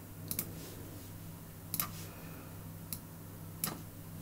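Sharp computer mouse clicks, a few at irregular intervals, some in quick pairs, over a low steady hum.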